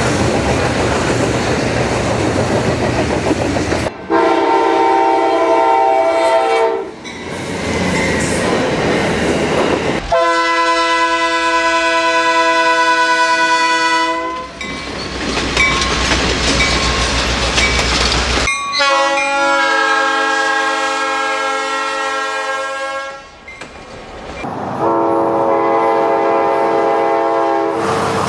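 A real train's multi-chime air horn sounds four long blasts, each lasting about three to four seconds. Between the blasts there is the rumble and clickety-clack of a passing train.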